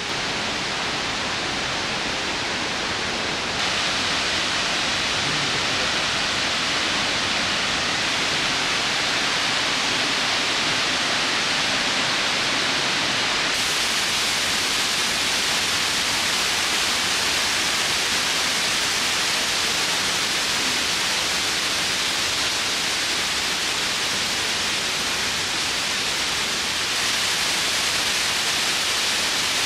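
Shiraito Falls, many thin streams of water pouring over a wide cliff, making a steady rush of falling water. The sound turns brighter in steps about four, fourteen and twenty-seven seconds in.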